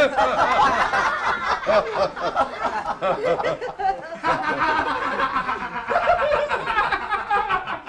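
Several people laughing heartily together, with loud open-mouthed belly laughs from men; the laughter dips briefly about halfway through and then picks up again.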